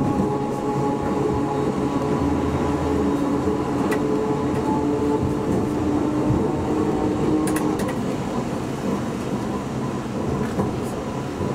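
Iyotetsu Moha 50 streetcar running on its street track, heard from inside the car: a steady whine of a few tones from the motors and gearing over the rumble of the wheels. The whine stops about eight seconds in, leaving the running rumble.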